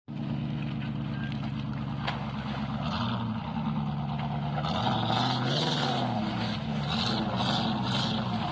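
V8 engine running with a misfire but still going. Its speed dips briefly about three seconds in, then sags and picks up again around the middle.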